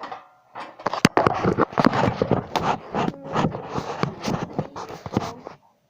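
Close handling noise: dense scraping and rustling with many sharp knocks, the sharpest about a second in, dying away near the end.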